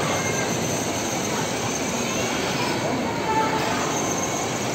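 Battery-powered ride-on toy car rolling across a tiled floor, its electric motors and plastic wheels giving a steady rumbling whine.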